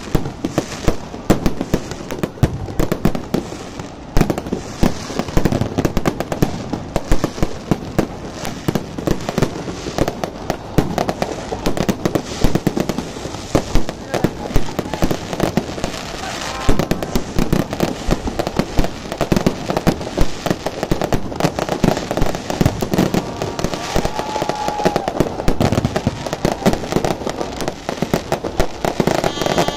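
Aerial fireworks display: many bangs and crackling pops in quick succession without a break.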